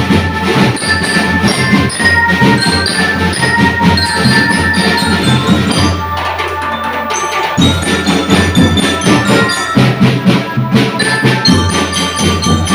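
Drum band playing: quick marching-drum strokes under ringing metal mallet-bell notes carrying a melody. The low drums drop out briefly around the middle, then come back in.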